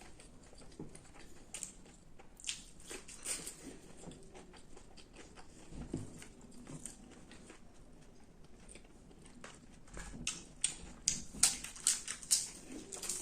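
Close-miked eating: a person biting and chewing crunchy food, with irregular crisp crackles that come thicker and louder in the last few seconds.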